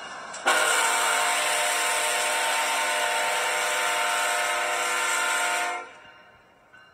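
BNSF diesel locomotive's air horn sounding one long blast of about five seconds, several notes at once in a chord. It starts suddenly and cuts off near the end.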